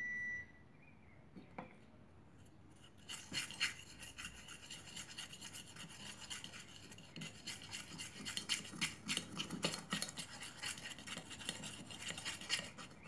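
Clear plastic spoon stirring glue and paint in a small stainless-steel pot, a quick repeated scraping and rasping from about three seconds in. A brief steady beep right at the start.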